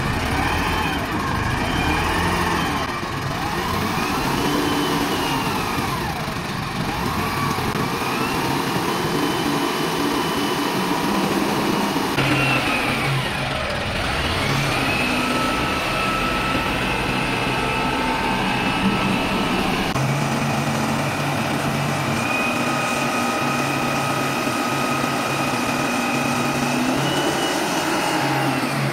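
Diesel engine of a 1.2 m³ self-loading concrete mixer truck running and revving up and down as the machine works, with a whine that rises and falls with the revs and holds level for long stretches.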